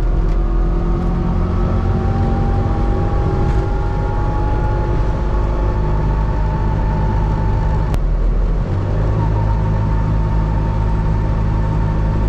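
A 1984 Trabant 601S's air-cooled 594cc two-cylinder two-stroke engine running under way, its pitch rising slowly for about eight seconds. A sharp click and a brief dip in the engine note follow, and then it runs on steadily.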